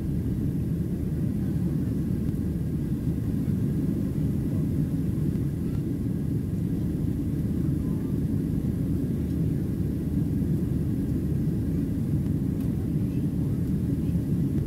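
Steady low rumble of a Boeing 737-700's CFM56-7B turbofan engines and rushing airflow heard inside the passenger cabin during the initial climb after takeoff.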